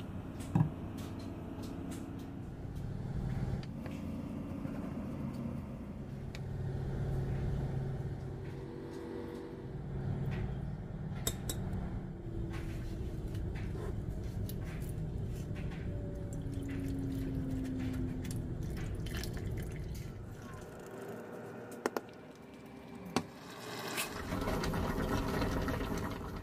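Olive oil poured from a bottle into a small stainless-steel pan, with scattered clinks and knocks of metal cookware and utensils.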